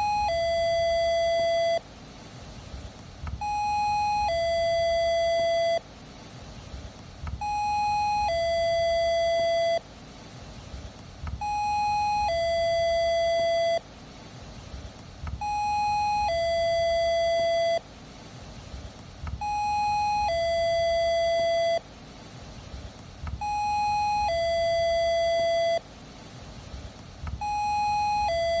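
Doorbell ringing its two-note ding-dong over and over: a short higher note, then a longer lower one, repeating about every four seconds.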